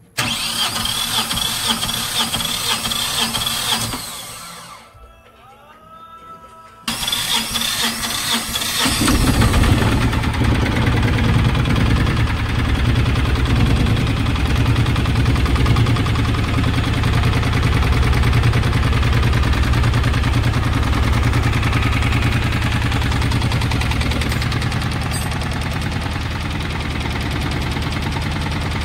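Mahindra Jeeto minivan engine being cold-started after a rebuild: the starter cranks for about four seconds without the engine catching, stops, then cranks again about seven seconds in. The engine fires about two seconds later and runs on at a steady idle.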